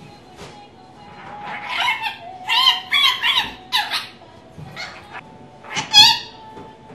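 Rainbow lorikeet chattering: a run of quick, high-pitched squawks and garbled, speech-like babble, with a loud sharp screech about six seconds in.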